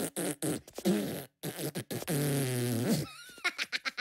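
A cartoon Minion voice beatboxing in quick rhythmic mouth-percussion beats. About two seconds in it gives way to a long, low, buzzing fart sound lasting about a second, which dips at the end. A thin, high, wavering squeal follows.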